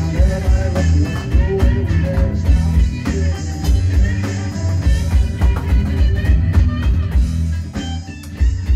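Rock music with guitar and a drum kit playing a steady beat.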